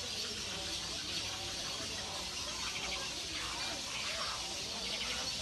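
Steady high-pitched chorus of insects, with a stretch of faster, pulsing chirps about three seconds in.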